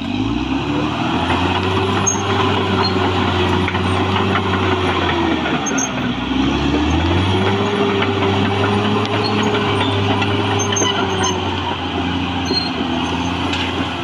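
Caterpillar D6R XL bulldozer's diesel engine running under load as it pushes earth and roots: the revs climb in the first second and hold high, sag about six seconds in, then climb again and hold before easing slightly near the end.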